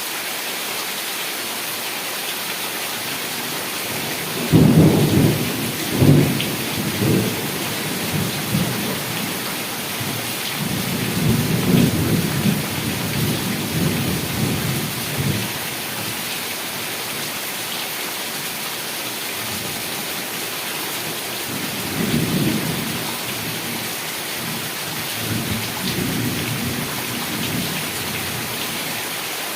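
Heavy rain falling with a steady hiss, with low rolls of thunder rumbling in about four seconds in, again around eleven seconds, and twice more in the second half; the first roll is the loudest.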